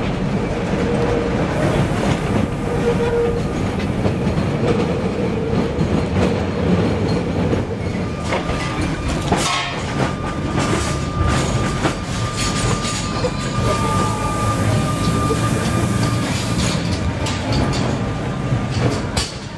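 Vintage electric tram running on its rails: a continuous rumble of the car with rattling clatter from the wheels over the track. A thin steady wheel squeal rings for several seconds in the middle.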